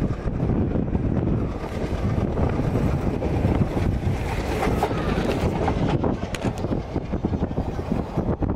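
Express passenger train running at speed, heard from on board: a steady rumble and rattle of the coach on the rails, with wind noise on the microphone.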